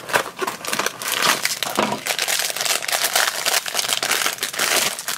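Cardboard blind box being torn open, then the foil bag inside crinkling and crackling as it is handled and pulled open by hand.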